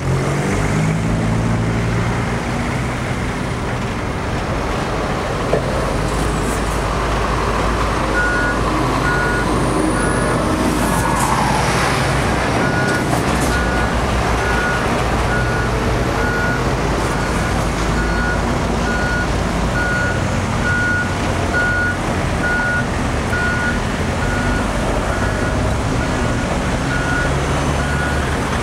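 Diesel engines of heavy construction machinery running steadily, with a reversing alarm beeping at an even pace from about eight seconds in.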